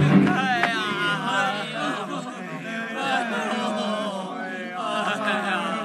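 Male voices chanting together in the manner of Buddhist monks: a steady low drone with several wavering voices over it.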